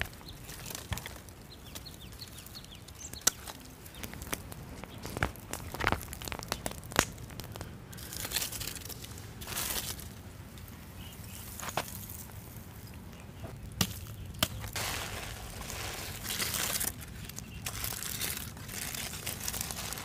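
Sharp knocks and cracks as a stick prods charred wood and charcoal in a fire pit, then aluminium foil crinkling and rustling as it is peeled open near the end.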